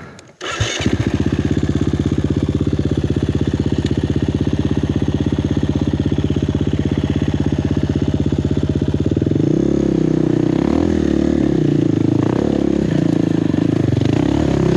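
Four-stroke single-cylinder enduro dirt bike engine comes in about half a second in and idles steadily. From about nine seconds it is revved up and down repeatedly as the bike is ridden at a steep, slippery hill climb.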